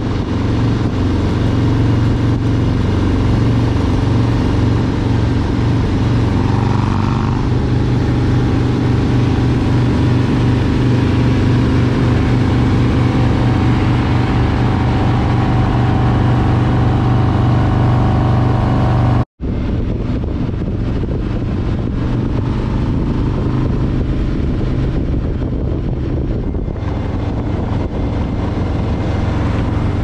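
Harley-Davidson bagger's V-twin engine and exhaust running at road speed, a steady deep engine note under road and wind noise. About two-thirds of the way through, the sound cuts out for a moment and picks up again.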